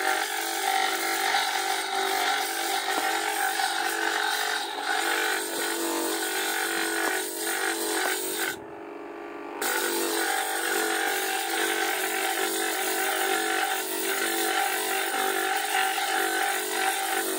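Flat-lap lapidary machine running with a steady motor hum, a stone cabochon pressed against its wet, spinning red wheel at the early polishing stage, giving a grinding noise over the hum. The grinding stops for about a second near the middle, when the stone comes off the wheel, while the motor keeps running.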